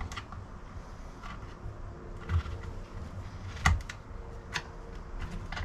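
Small clicks and taps of a screwdriver working the chain-tensioning screw on the side of a petrol chainsaw's bar, with the chain being set looser or tighter. A sharper knock comes about three and a half seconds in.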